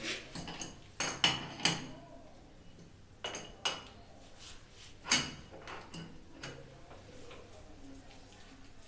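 Metal wrench clinking against a chrome wall fitting while a flexible water-hose connection is worked on: about a dozen sharp metallic clinks, loudest about a second in and again about five seconds in, dying away after six seconds.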